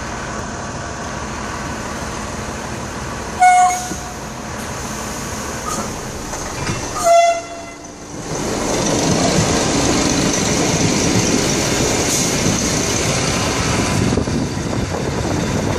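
Two short train horn blasts, about three and a half seconds apart, exchanged as a greeting between train drivers. From about eight seconds in, an ALe 501 Minuetto train passes close alongside on the next track with a steady, louder rumble of wheels and running gear.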